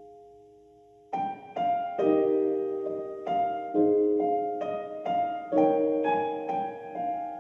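Piano music: a held chord fades out, then from about a second in a gentle melody of single struck notes, each ringing and decaying, at a steady pace.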